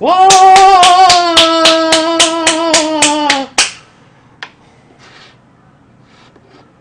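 A man's long held cheer, "waaah", over fast hand clapping at about four claps a second. The cheer slowly drops in pitch and stops together with the clapping about three and a half seconds in.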